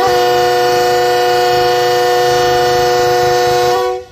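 A Pakistan Railways GEU-40 diesel locomotive's air horn sounds one long, steady chord of several notes as the departure whistle. It cuts off sharply just before the end.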